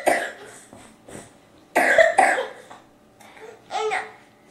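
A young girl coughing into her hands: a fit of four short coughs, two of them close together in the middle.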